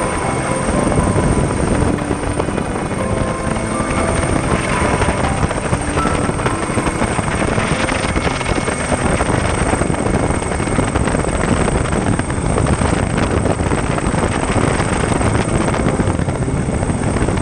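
Helicopter engine and rotor noise heard from on board, loud and steady, with a thin high whine.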